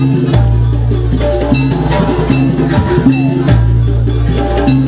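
Loud jaranan dance music: drums and other percussion over a deep bass line of held notes, with a melody above.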